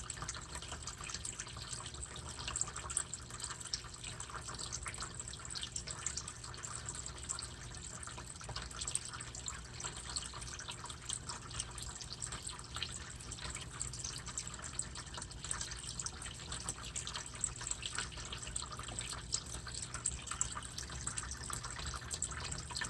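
Water in a turtle tank trickling and dripping steadily with many small irregular splashes, over a low steady hum.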